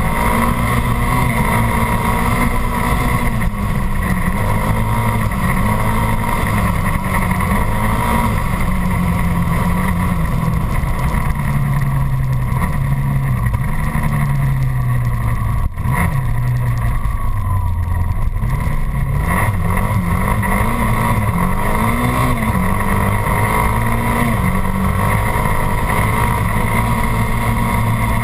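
Dirt bike engine running while being ridden, its revs rising and falling with the throttle. The sound briefly drops out about halfway through.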